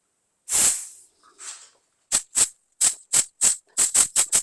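Compressed air hissing into a Kelsey-Hayes four-piston brake caliper to blow out its stuck pistons: one longer blast that fades, a smaller one, then a quick run of short blasts about three a second.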